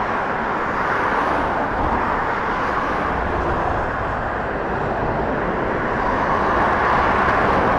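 Steady rush of continuous traffic on the A14 dual carriageway, swelling gently as vehicles pass close by alongside the footpath.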